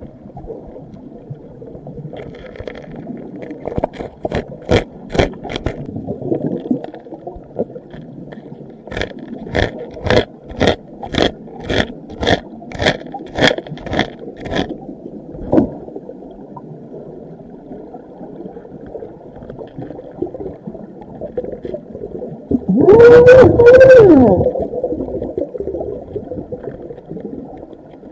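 Underwater recording of a metal pick tapping and scraping in a crack in granite bedrock, heard as runs of sharp clicks, about two a second, over a muffled water rush. About 23 s in, a loud wavering pitched moan sounds for about a second and a half.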